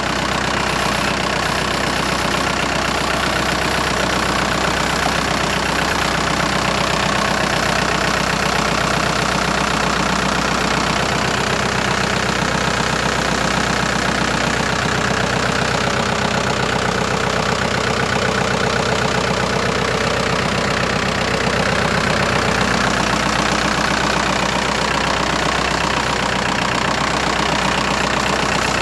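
Kubota L5018 tractor's diesel engine idling steadily.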